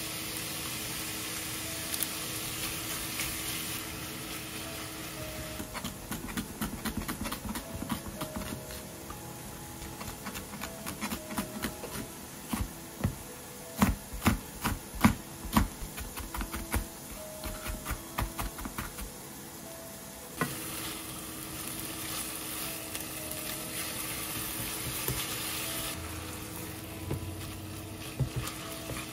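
Ground pork sizzling in a frying pan as it is stirred with a spatula. In the middle comes a quick run of knife taps on a cutting board as a green onion is chopped finely. Then the browned mince sizzles again under the spatula.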